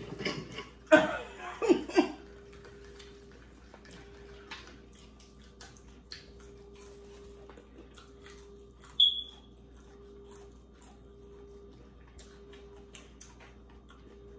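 Close mouth sounds of eating crispy fried chicken: chewing and small crunches and clicks, louder for the first two seconds, over a steady faint hum. A single short high-pitched beep sounds about nine seconds in.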